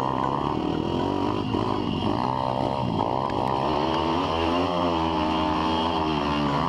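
Four-stroke single-cylinder pit bike engine under hard riding, its pitch rising and falling as the throttle is opened and closed and gears are changed.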